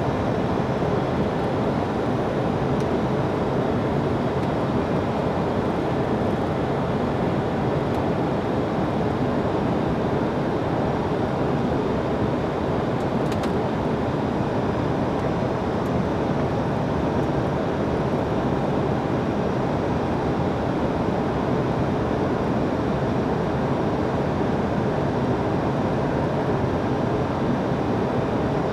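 Steady rush of airflow and engine noise heard inside an Airbus A321's cockpit on final approach.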